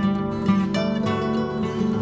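Background music led by a strummed, plucked acoustic guitar.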